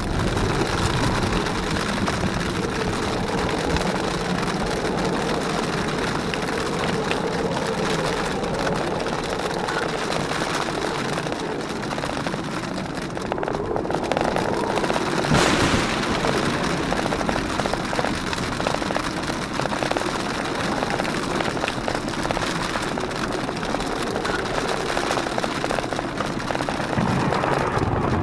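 Jeep Wrangler JKU driving over a wet, rocky mountain trail: steady engine and tyre noise mixed with wind and rain noise, with a single sharp knock about halfway through.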